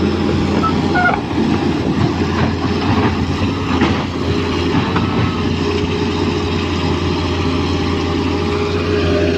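Excavator running: a steady diesel engine drone with continuous metallic clatter and rattling. A couple of short squeaks come about a second in.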